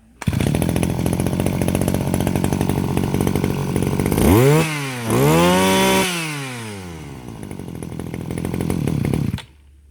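23cc G2KC two-stroke brush cutter engine catching at once on the pull and running, revved up twice about four to six seconds in and dropping back to idle, then picking up again before it cuts off suddenly near the end.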